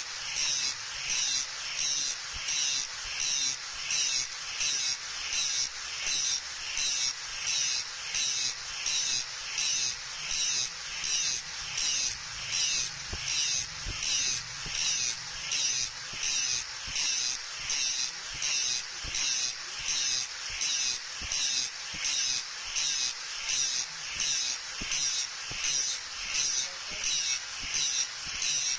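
Electric angle grinder with an abrasive disc grinding the steel of a leaf-spring kukri blade. The high-pitched grinding swells and eases in even strokes a little more than once a second as the disc is swept back and forth along the blade.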